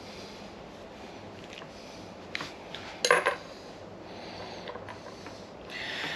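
Light metallic clinks and rattles of hand tools and small parts being handled, with a sharper clatter about three seconds in.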